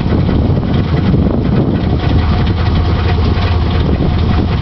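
Chevy S10's 4.3 L Vortec V6 idling steadily with a rattling noise that the owner suspects comes from the crankshaft or timing chain.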